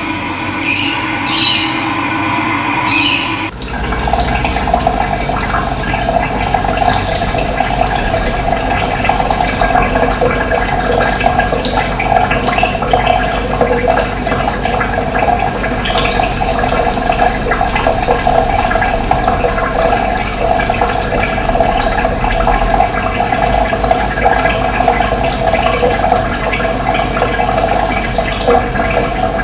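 Running water rushing steadily, as from a stream or small waterfall. It replaces a different sound carrying steady high tones, which cuts off abruptly about three and a half seconds in.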